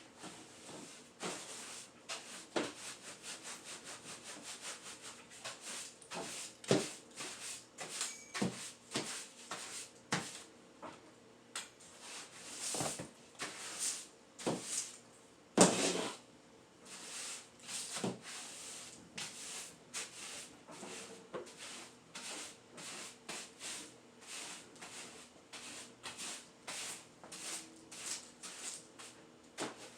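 Broom sweeping a floor: repeated short brushing strokes, about one or two a second, uneven in strength.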